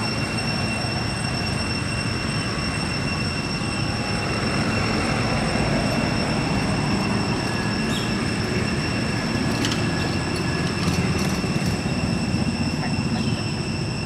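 Steady outdoor background noise, a constant rumble and hiss under a high-pitched whine that holds one pitch, with a few faint clicks past the middle.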